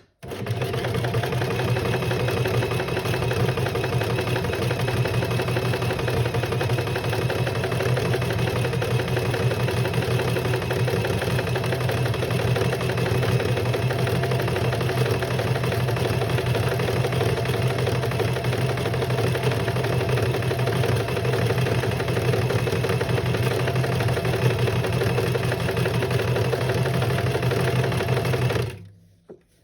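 Electric sewing machine running steadily at full speed, stitching a seam along a fabric strip. It starts abruptly and stops about a second before the end.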